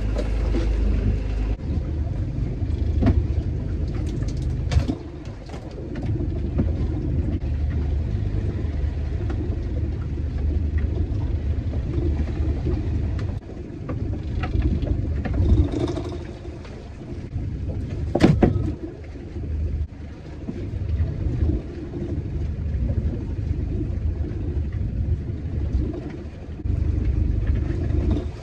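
Small fishing boat's engine running with a steady low drone. A few sharp knocks are heard over it, the loudest about eighteen seconds in.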